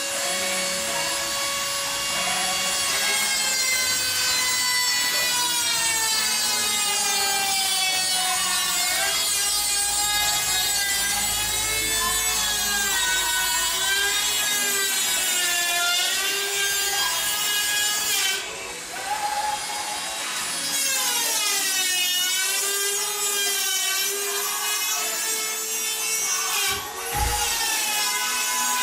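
Dremel rotary tool cutting through a computer case panel: a high, continuous motor whine that wavers up and down in pitch as the bit loads and unloads in the cut. It dips briefly about two-thirds of the way through.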